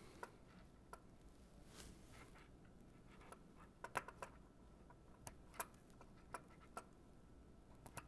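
Faint, scattered light clicks and rustles of hands handling harness wires with crimped contact pins, close to near silence.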